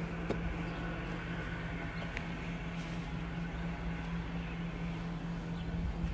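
A steady, even machine hum at one low pitch, with a few faint light ticks over it.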